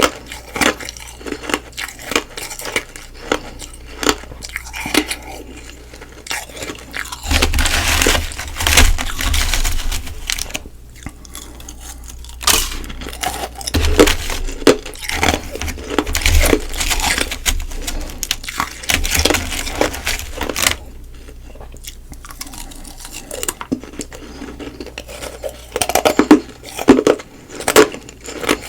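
Close-miked crunching and chewing of frozen humidifier frost and ice: a steady stream of small crackly bites and chews, with louder runs of crunching about a quarter of the way in, around the middle and near the end.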